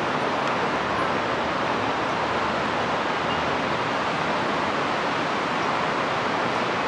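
Steady, even rushing noise with no distinct events, as of street traffic or wind across the microphone.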